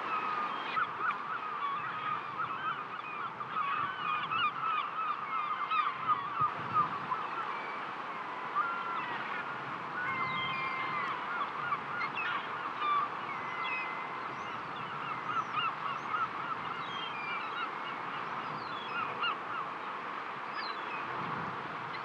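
A flock of birds calling all at once: a dense, continuous chatter of many short calls with scattered longer whistled notes above it. A faint steady wash of surf lies beneath.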